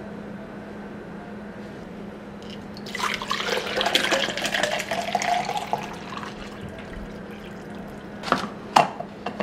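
Water poured from a plastic gallon jug into a plastic shaker bottle, splashing and gurgling for about three seconds. A couple of sharp knocks come near the end.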